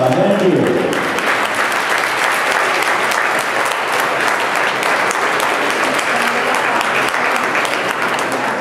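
Audience applauding, a dense steady clapping that takes over as the dance music ends about half a second in and eases off slightly near the end.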